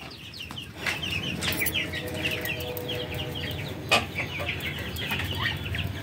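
Backyard chickens clucking, with many short high calls from the flock, and a single knock about four seconds in.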